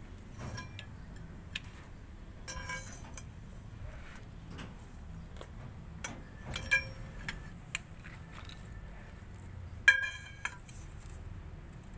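Metal hand tools clinking against metal: three ringing clinks, the last and loudest near the end, among lighter clicks and taps, over a low background rumble.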